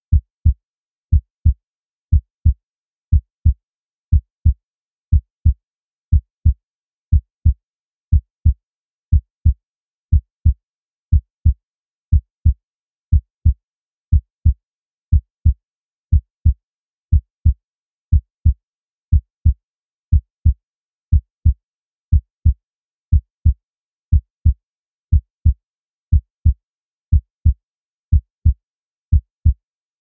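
Heartbeat sound effect: a steady lub-dub, two low thumps close together, repeating about once a second with silence between beats.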